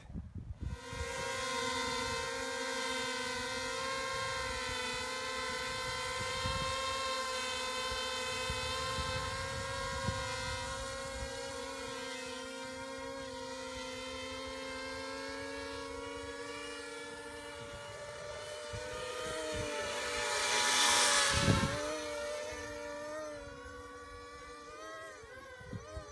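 Quadcopter's electric motors and propellers buzzing with a steady multi-toned whine that starts about a second in. In the second half the pitch shifts and warbles up and down with throttle changes, and the sound grows loud for a moment about 21 seconds in.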